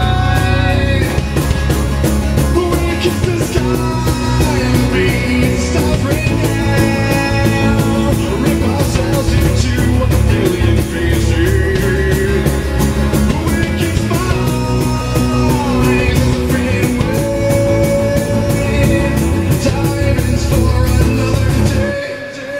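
Live acoustic rock band playing a song: a sung lead vocal over acoustic guitar, bass and drums with a steady beat. The song ends abruptly near the end.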